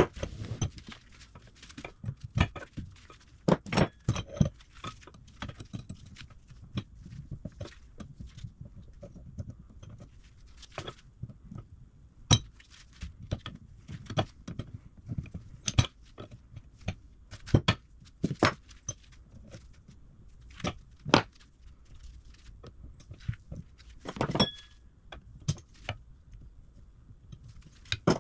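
Hand tools and steel vise parts clinking and knocking irregularly during bench vise disassembly, with occasional short metallic rings between quieter handling noises.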